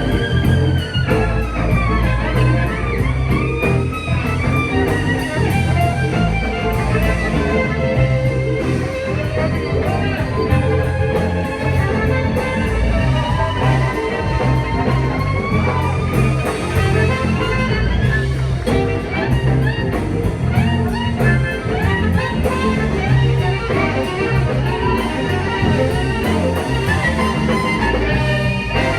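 Band music in a blues-rock style: a lead guitar playing bending, sliding lines over bass and drums at a steady beat.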